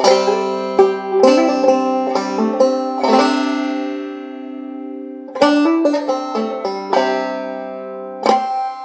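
Bluegrass instrumental passage led by a banjo: struck chords ring out and fade slowly, with fresh strokes every second or two and a cluster of quick notes about five and a half seconds in.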